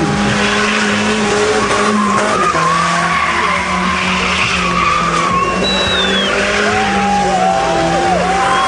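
Red Mercedes-Benz 190 sedan doing burnout donuts: its rear tyres spin and squeal continuously over the running engine, and the squeal's pitch wavers up and down in the second half as the car slides.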